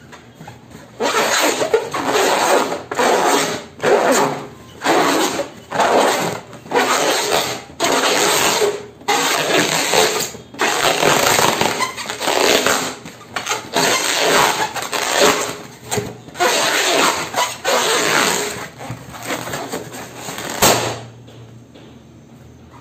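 Hands rubbing and squeezing a long spiral latex balloon in repeated rasping strokes, about one a second. Near the end there is a single sharp pop as the balloon bursts.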